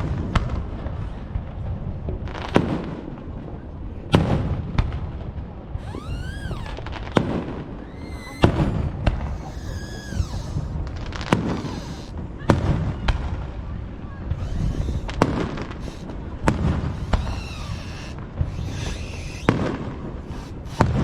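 Aerial fireworks shells bursting in close succession, a sharp bang about every second or so, with a few whistles that rise and fall between the bangs.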